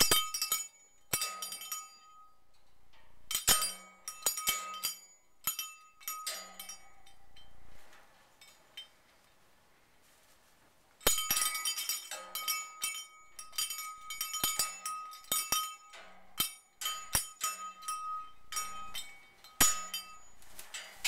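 Miniature metal cow bell on a parrot toy clanking and ringing in quick, irregular bursts as a female Eclectus parrot bites and bats at it. It goes quiet for a few seconds about a third of the way in, then clangs rapidly again.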